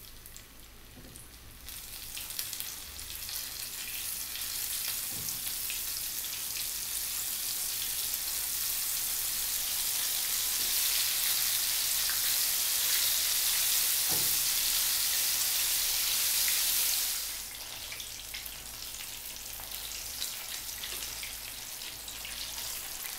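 Flour-dredged dory fillets sizzling as they shallow-fry in hot oil in a pan. The sizzle builds from about two seconds in as pieces go into the oil, then drops to a quieter, steady sizzle about three-quarters of the way through.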